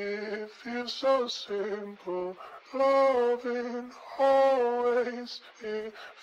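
Background music: a song starts with a lone singing voice in short phrases of held notes, with little else under it.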